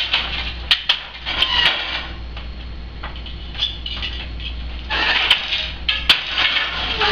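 Countermarch floor loom being worked by hand: shuttles sliding across the warp and the wooden beater knocking the weft into place, in two bursts of rustling and sharp knocks, one at the start and one from about five seconds in.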